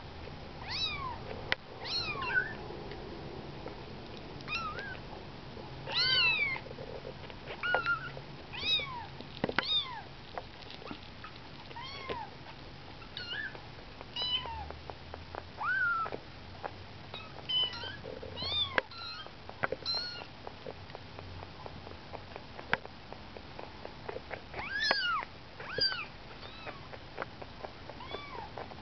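Very young kittens, about 19 days old, mewing: thin, high-pitched cries that come every second or two, often several overlapping from different kittens.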